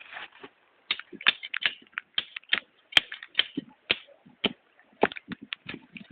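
A run of irregular crisp clicks and crunches, several a second, uneven in loudness.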